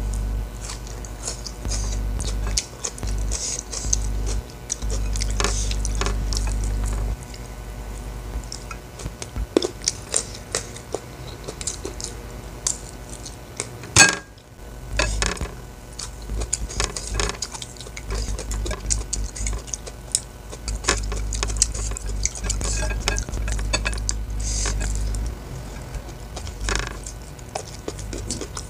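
Close-miked eating by hand: chewing and mouth sounds with many small clicks of fingers and food against a ceramic plate, and one louder knock about halfway through.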